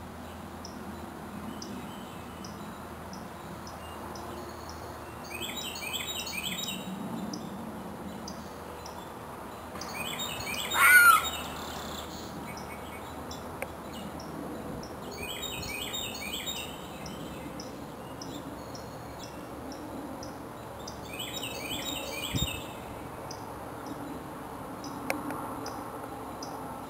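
Woodland birds singing: a short phrase of quick high notes repeats about every five seconds, and one louder call sweeps up and down in pitch about eleven seconds in. A faint, steady high ticking runs underneath.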